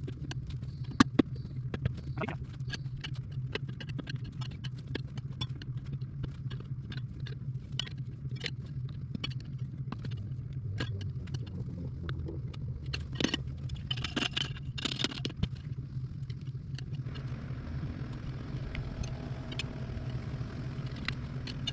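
Tire iron and screwdriver clicking and scraping against a dirt bike wheel rim as a tube-type tire's bead is levered on by hand, in irregular knocks, loudest about a second in and again in a cluster toward the middle, over a steady low hum.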